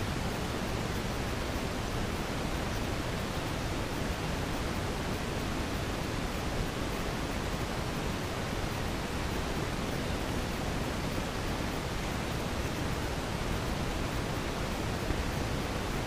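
Steady, even hiss of noise that covers all other sound: the GoPro's audio track is faulty.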